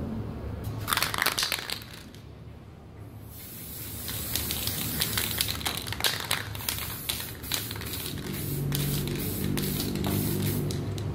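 Aerosol can of silver spray paint hissing in a run of short spurts as another coat goes on, after about a second of sharp clicking near the start. A low steady hum joins in for the last few seconds.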